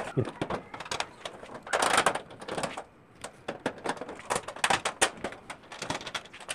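Irregular small clicks, taps and scrapes of a selector switch being fitted into the galvanised sheet-metal control panel of an air cooler and its screw being tightened, with a longer rasping scrape about two seconds in.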